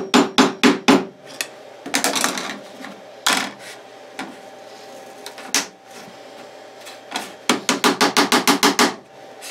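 Stiff-bristled wooden hand brush swept in quick back-and-forth strokes over a laminate sheet and chipboard CNC bed, clearing away cutting chips. A quick run of strokes at the start and another near the end, about seven a second, with a few single sweeps between.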